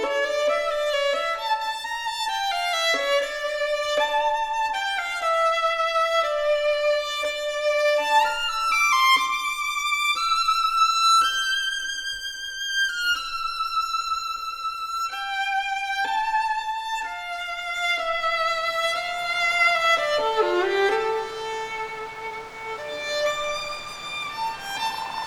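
Solo violin playing a slow melody, one note at a time, with vibrato on held notes and a downward slide near the end.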